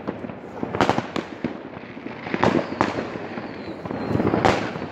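Fireworks and firecrackers going off: sharp bangs at irregular intervals over a continuous crackle, the loudest about four and a half seconds in.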